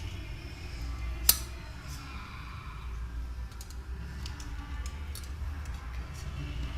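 Faint scraping and small light clicks of a tool working old touchscreen adhesive off a phone's frame, with one sharp click about a second in, over a low steady hum.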